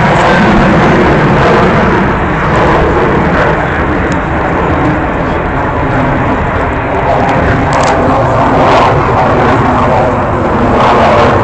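Avro Vulcan bomber's four Rolls-Royce Olympus jet engines, loud and steady as the aircraft flies its display.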